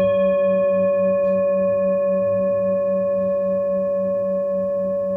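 A struck metal bell tone, like a singing bowl, ringing out after the strike and fading very slowly. Its lowest tone wavers in a slow, even pulse.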